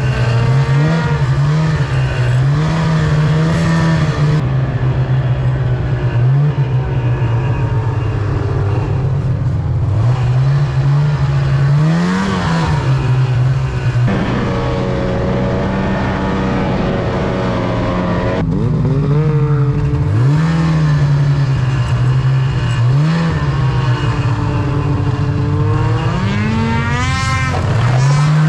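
Snowmobile engine revving up and falling back again and again as the sled rides through deep snow, its pitch rising and dropping with the throttle. The sound changes abruptly several times.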